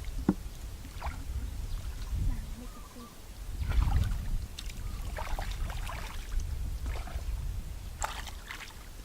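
Shallow water sloshing and splashing in irregular bursts over a low rumble, as from someone wading and groping for fish by hand.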